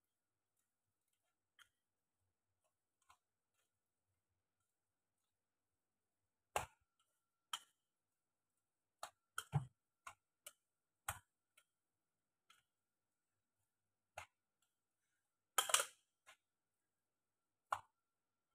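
Near silence broken by scattered sharp clicks and knocks from hands working at a kitchen counter, starting about a third of the way in; a quick cluster of knocks near the end is the loudest.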